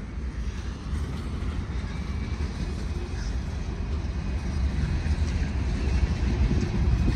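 Freight train rolling past, a steady low rumble of its cars on the rails that grows a little louder toward the end.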